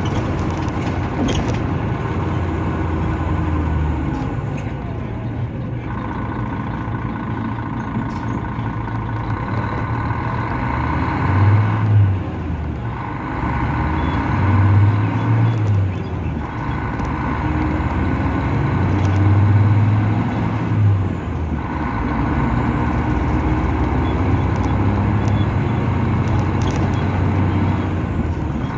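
Mercedes-Benz O500-RS coach's diesel engine running under way, heard from inside the cabin. Its drone rises and falls with the throttle and swells three times around the middle.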